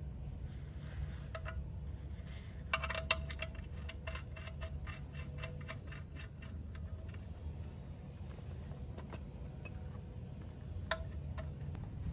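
Small metallic clicks in a quick, even run, about three a second for several seconds, as a wrench tightens the oil drain plug back into the oil pan, with one sharper click near the end.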